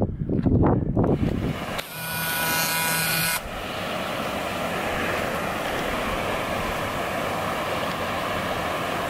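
Wind buffeting the microphone in low gusty rumbles for the first second or so, then, after a short break, a steady rushing hiss.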